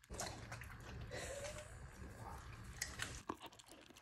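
Samoyed eating snacks off a plate: faint chewing with a few small clicks.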